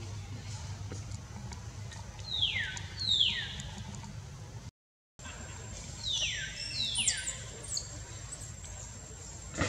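An animal's high squealing calls, each falling steeply in pitch, come two in quick succession about two seconds in and again about six seconds in, over a steady low hum. A short break to silence falls between the two pairs.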